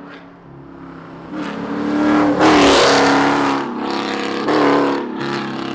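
Chrysler 300's 5.7 L Hemi V8 exhaust through BBK long-tube headers, revving up loud twice: a long rise and fall, then a shorter blip near the end.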